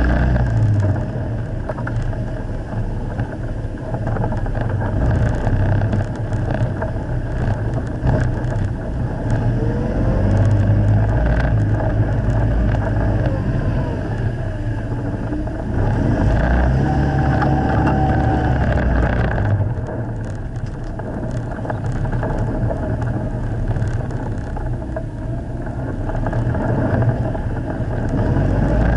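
Steyr-Puch Haflinger's air-cooled flat-twin engine running under load on a steep, rutted dirt climb, heard from on board, its pitch rising and falling a few times.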